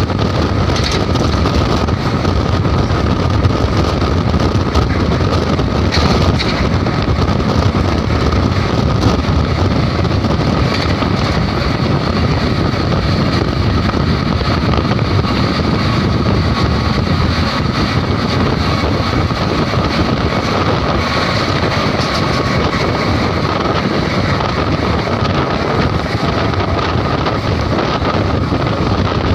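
Wind rushing over the microphone and the running noise of a moving train, with a steady whine.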